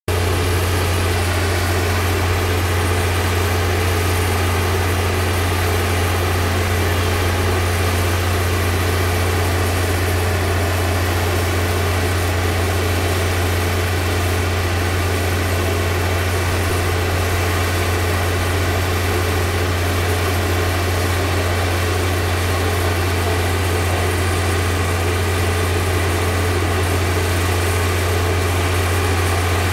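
Engine of a large crane running steadily as it holds a water tower's spherical tank aloft: an even, low drone that does not change.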